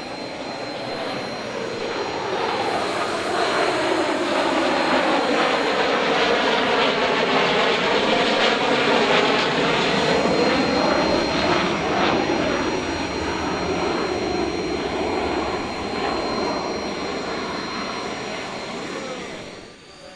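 B-2 Spirit stealth bomber's four turbofan engines on a low pass: loud jet noise that builds, peaks about a third of the way in and slowly fades, its tone sweeping down and back up as the aircraft goes by. It cuts off abruptly near the end.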